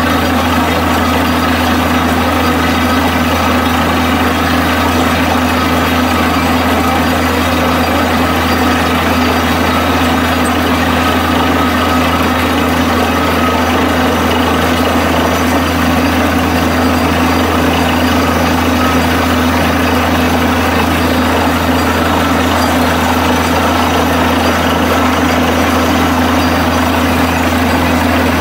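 Borewell drilling rig running steadily under load: a heavy engine's loud, unbroken low hum with a regular pulsing beneath it.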